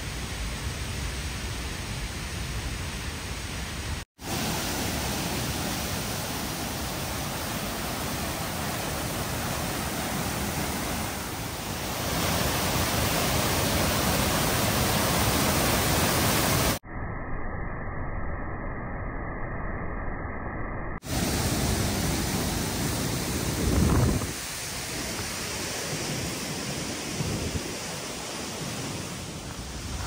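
Steady rushing noise of falling water, heard in several clips joined by abrupt cuts. It grows louder in the middle, and one short segment just after that is muffled and dull.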